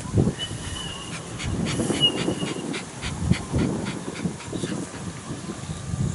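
Shiba Inu panting quickly, about three breaths a second.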